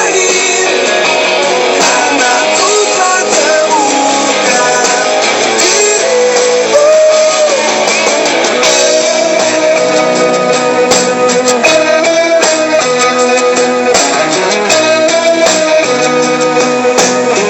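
Background music: an Indonesian pop song in an instrumental passage with guitar playing.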